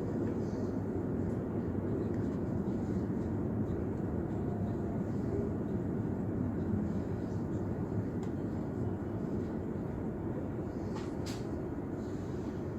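Steady running rumble of an S-Bahn train between stations, heard from inside the carriage, with a brief sharp click about eleven seconds in.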